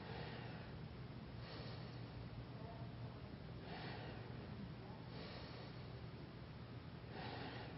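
A man breathing audibly and slowly while silent, five faint hissing breaths a second and a half to two seconds apart, over a low steady room hum.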